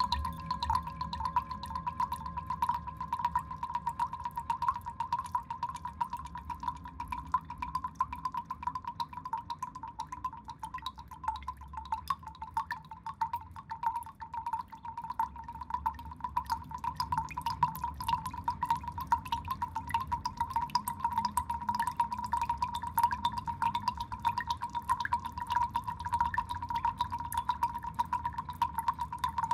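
Water dripping in a fast, continuous patter of small drops, with a low rumble underneath.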